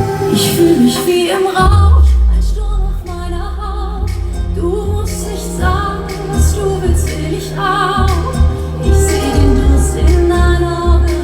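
Live pop concert music: a woman singing over a heavy bass beat that kicks in about a second and a half in.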